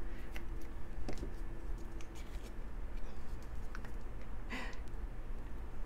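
Faint clicks and taps of small hard-plastic McNugget Buddy toy pieces being handled and fitted together, with one short louder noise about four and a half seconds in.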